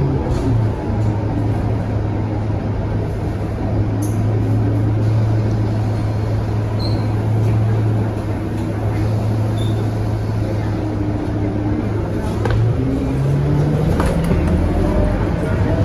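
Scania K230UB bus's rear-mounted diesel engine and drivetrain heard from inside the passenger cabin: a steady low drone while cruising, rising in pitch from about three-quarters of the way through as the revs climb. A few light rattles and clicks from the cabin fittings.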